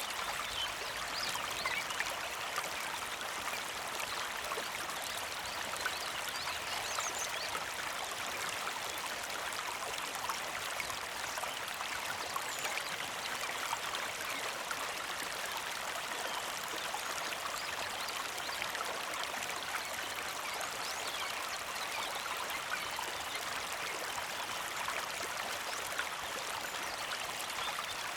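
Small creek flowing with a steady, gentle trickle and fine splashing.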